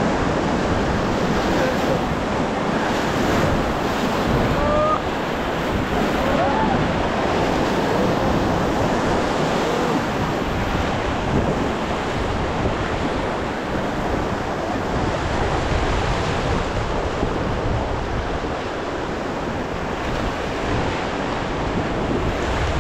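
Steady rush of whitewater from a fast river rapid churning around an inflatable raft, with wind buffeting the camera microphone.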